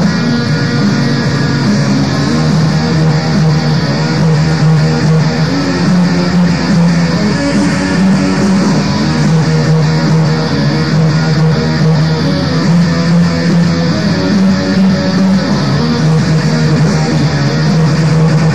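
Raw black metal: distorted electric guitars and bass in a dense, unbroken wall of sound.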